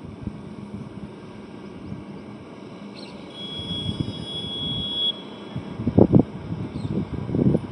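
Highway road traffic with a steady low rumble of passing vehicles. A thin, high, steady tone is held for about two seconds midway. Loud low rushes come near the end as vehicles pass close.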